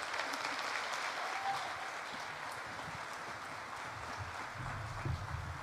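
Audience applauding steadily after a speech, easing slightly toward the end. A low rumbling comes in about four seconds in.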